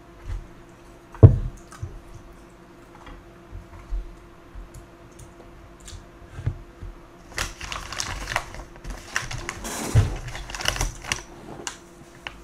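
Close-miked eating sounds over a bowl of jjamppong noodle soup: a single thump about a second in, then from about seven seconds in a few seconds of dense, clicky crackling mouth and handling noise.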